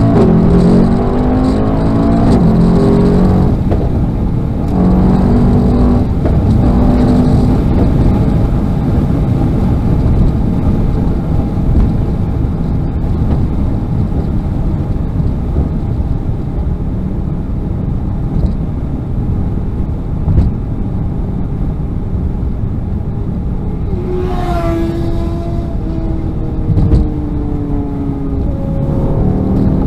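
Mercedes-AMG E63's twin-turbo V8 heard from inside the cabin, accelerating hard from a standstill with the engine pitch climbing and dropping back at each quick upshift through the first several seconds. It then settles into a steady highway-speed drone with road and wind noise. About 24 s in, the engine revs up sharply and pulls again to near the end.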